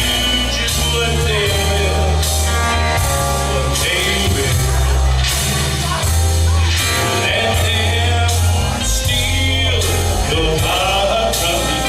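Loud rock-style music with a steady drum beat, heavy bass and a singing voice.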